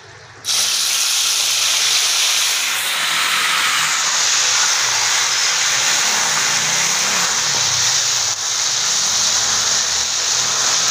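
Soaked semolina and its water poured into a pan of hot oil and melted sugar, sizzling with a loud steady hiss that starts suddenly about half a second in. This is the stage in making makhandi halwa when the wet semolina meets the hot syrup.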